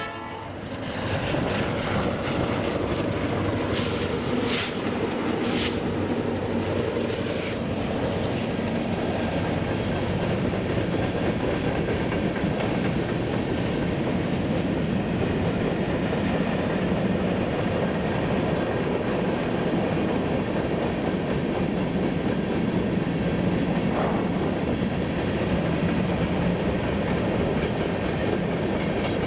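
Canadian National freight train rolling past at trackside: a steady rumble with the clatter of wheels on the rails. A few brief, sharp high-pitched sounds come about four to seven seconds in.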